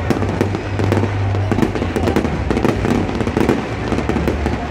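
Aerial fireworks bursting in rapid succession: many sharp bangs and crackles overlapping, several a second, over a steady low rumble.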